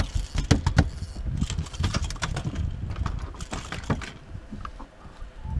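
Rapid irregular clicks and knocks, dense and loud for about four seconds, then sparser and quieter.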